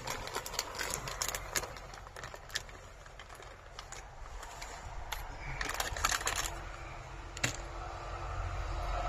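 Small, irregular clicks and crackles of chopped walnut pieces being sprinkled by hand onto meat and prunes in a glass baking dish, with a low rumble building near the end.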